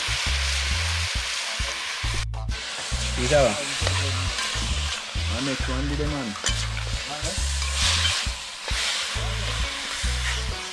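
Seasoned wild rooster meat sizzling as it fries in oil in a large metal pot over a wood fire, stirred with a spoon. A background music beat runs underneath.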